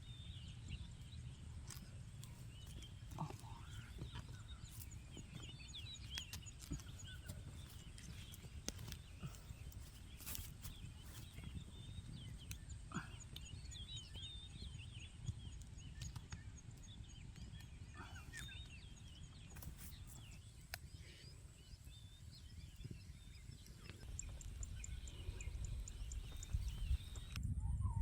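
Wild birds chirping and calling, many short calls scattered throughout, over a low steady rumble of outdoor background noise. A fast, even, high-pitched ticking comes and goes.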